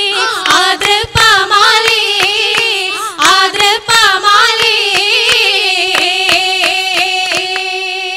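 Oppana song: voices singing a winding Mappila melody over steady rhythmic hand claps, a little under three claps a second. About halfway through, the singing settles into one long held note while the clapping continues.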